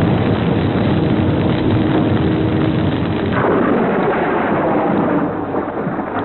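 A loud, continuous rumbling roar, like a blast or eruption, with a fresh surge a little past halfway.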